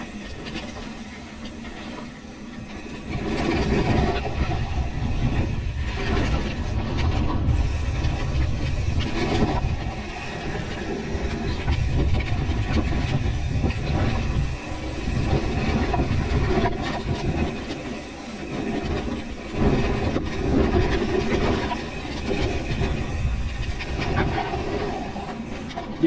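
Pivot Switchblade full-suspension mountain bike riding fast down a rough dirt trail, heard from a camera on the rider: a continuous rumble of tyres over dirt and stones with constant rattling of the bike. It gets louder about three seconds in.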